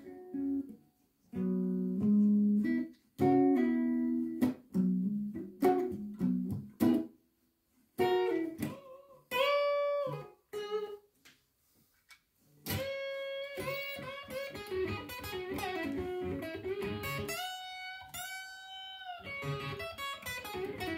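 Les Paul-style electric guitar played solo in a blues style: picked phrases low on the neck with two short pauses, then a longer run of higher single notes with bent notes in the second half.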